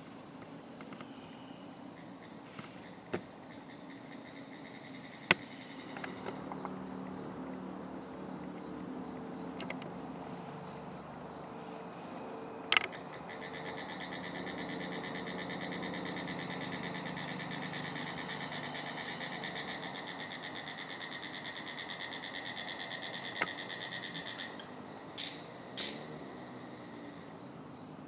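Steady chorus of insects with a high, even buzz throughout; about halfway through a rapid pulsing trill joins in and stops near the end. A faint low hum sits underneath for much of the time, and a few single sharp clicks stand out.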